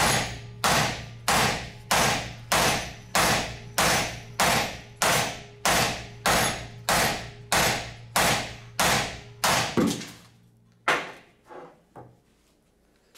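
Four-pound sledgehammer pounding a TIG-welded 7075 aluminum T-joint clamped in a steel bench vise, folding the upright plate flat in a destructive bend test of the weld. Even, rhythmic blows come about every 0.6 seconds for some ten seconds, then three lighter knocks near the end.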